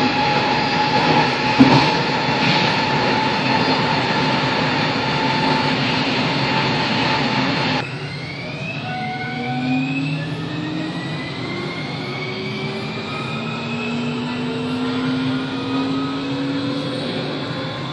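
Passenger train running, heard from on board: a loud steady rumble with a held whine, which changes abruptly about eight seconds in to a quieter run in which the whine rises slowly in pitch as the train gathers speed.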